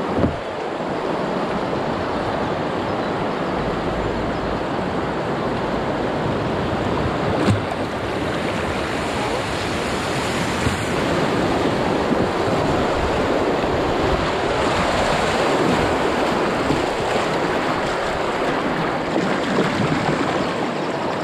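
Rushing whitewater of a small river rapid around an open canoe, a steady loud hiss, with wind on the microphone. A single sharp knock about seven seconds in.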